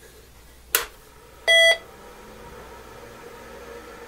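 The PC XT clone's power switch clicks on, and about half a second later the PC speaker gives one short, loud beep. A faint steady hum from the power-supply fan and spinning drives follows.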